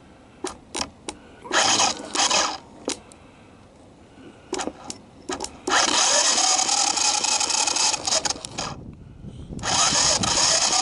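A Honda ATC200M engine being cranked over on the bench, in a short burst about two seconds in and a longer run of about three seconds from about six seconds in, then again near the end, with sharp clicks in between. This is a spark check: the plug is grounded on the case and fired by an external CDI ignition.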